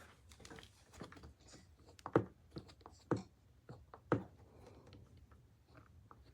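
A series of light clicks and taps, with three louder knocks about a second apart in the middle.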